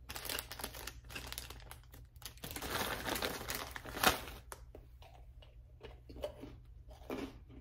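Crinkly plastic wrapper of a cookie packet being handled and opened: an irregular run of rustling and crackling, busiest in the middle, with one sharp crackle about four seconds in.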